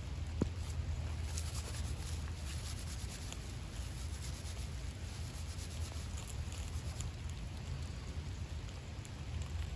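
Dry tulip poplar bark being rubbed and crumpled between the hands to fluff it into tinder: a soft scratchy rustling with a few faint ticks, over a steady low rumble.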